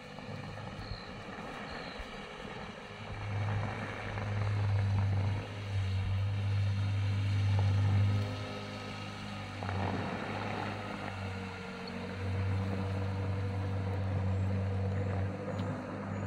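Electric outboard motor on a small boat running past, a steady low hum that swells and fades, over wind on the microphone, with a few bird chirps.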